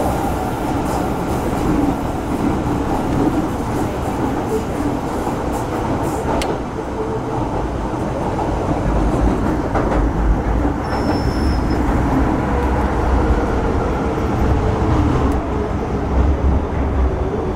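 MTR Metro-Cammell M-Train EMU running between stations, heard aboard its motor car: a steady rumble of wheels on track and traction equipment with a faint wavering whine. The low rumble grows stronger about nine seconds in, and there is a brief high squeal about eleven seconds in.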